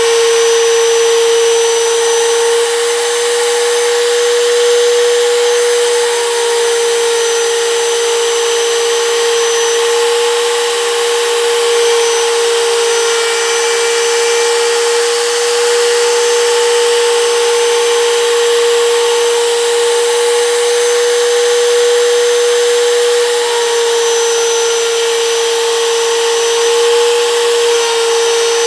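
Compact router running at full speed with a steady high whine, its bit cutting into a wooden block as it is guided back and forth.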